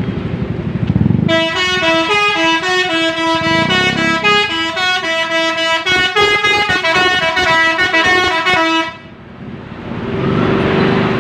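A bus's 'telolet basuri' musical air horn playing a quick tune of stepping notes for about seven seconds over the bus's engine. After the horn stops, engine and road noise swell near the end.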